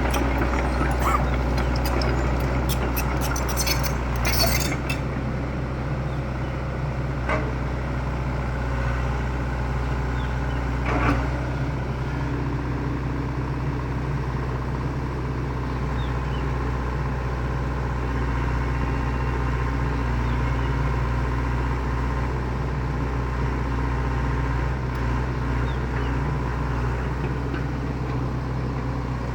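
Excavator's diesel engine running steadily, with a few sharp knocks in the first few seconds and one about eleven seconds in.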